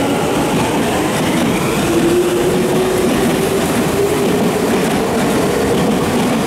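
Tokyu Toyoko Line electric commuter train running past the platform, with wheel and rail noise and a humming tone that drifts in pitch.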